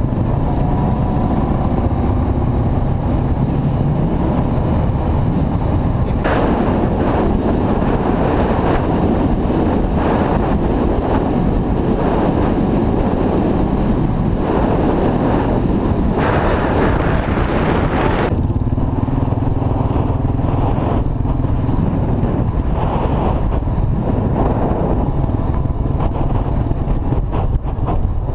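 Quad bike engine running steadily at road speed, with heavy wind buffeting on the microphone that gets rougher for about ten seconds in the middle.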